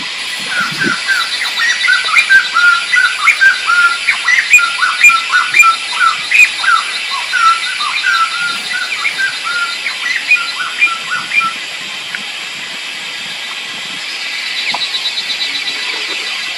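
A bird calling in a rapid run of short chirping notes, two or three a second, that stops about two-thirds of the way through. Under it runs a steady high insect drone, and a fast pulsing insect trill swells near the end.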